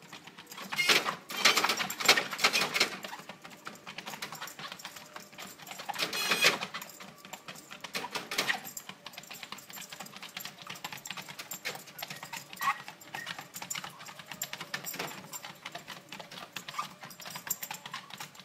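Small dog walking on a running treadmill: rapid clicking of its claws on the moving belt, with its metal chain collar jingling. The jingling and scrabbling get louder for a couple of seconds near the start and again briefly around six seconds in.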